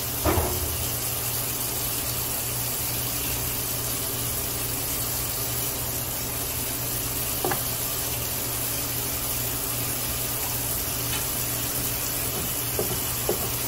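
Thawed squid tubes being handled in a sink of water and set on a plastic cutting board, over a steady hiss, with a sharp knock just after the start and another mid-way. Near the end a knife starts cutting squid on the board, a few quick knocks.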